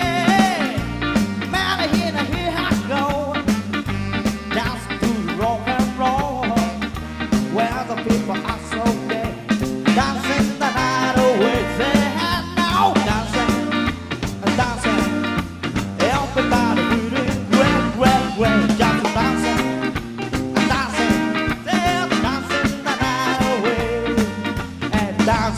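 A live band playing, with a steady beat and no clear lyrics.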